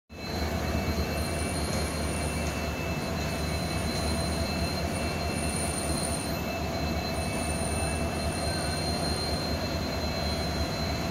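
Steady low rumble of a train at a railway station, with thin steady high tones running over it.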